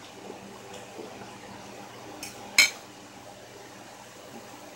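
Quiet eating sounds, with a metal fork clinking against a ceramic plate: a small tap a little after two seconds and one sharp clink just after it.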